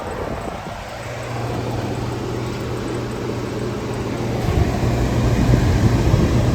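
A 1959 Welbilt Wall-Slim 2-horsepower heat pump running in cooling mode with its case off: a steady low hum over a rushing noise, growing louder about four and a half seconds in.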